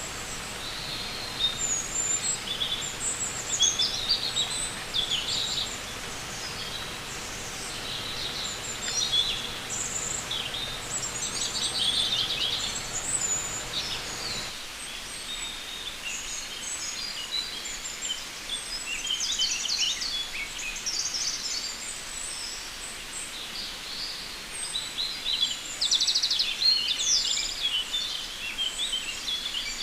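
Many birds chirping and singing at once: a dense chorus of short, high calls and trills over a steady background hiss. A low background hum drops away about halfway through.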